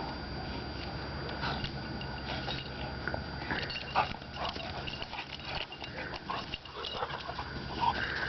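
Two dogs play-fighting, making a scattered run of short, irregular dog noises and scuffles, the loudest about four seconds in and again near the end.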